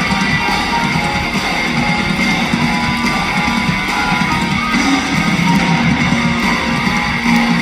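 Live rock band music played loud through a concert PA, led by strummed electric guitars over bass and drums.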